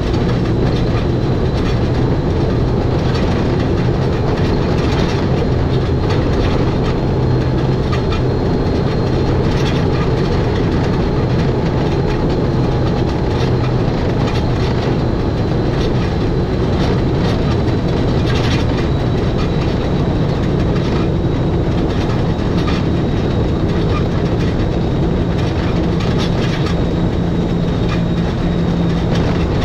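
Electric mountain rack-railway train of the Schynige Platte Railway running downhill: a steady low hum with continuous running-gear noise and scattered clicks and knocks.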